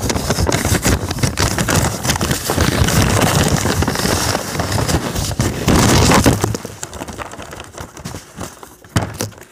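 Fast-food paper packaging rustling and crinkling close to the microphone, a loud dense crackle of rummaging, most likely digging ketchup packets out of the takeout bag. It thins out and fades over the last three seconds.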